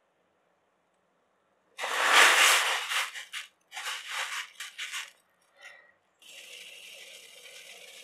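Cauliflower florets tipped into a stainless steel pot of salted water land with a loud splash, then a metal spoon stirs them in a few short scraping bursts. From about six seconds in, a steady bubbling hiss sets in as the water boils.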